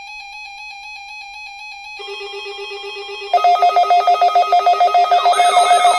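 Electronic synthesizer tones building up: a steady, slightly wavering tone, joined about two seconds in by a lower one, then about three seconds in by a much louder, rapidly pulsing layer.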